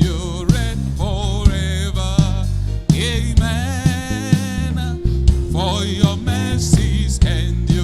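Gospel worship music: a voice singing wordless runs over a steady bass line and regular drum beats.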